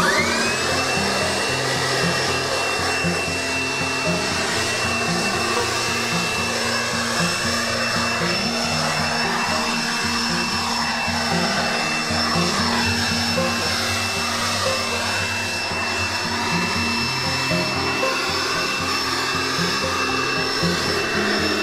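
Corded electric blower spinning up to a high whine right at the start, then running steadily at full speed while it blows hay dust and chaff off a concrete pad.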